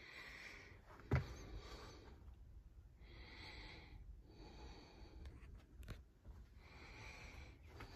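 A person breathing close to the microphone, soft in-and-out breaths every second or two, with a sharp knock about a second in.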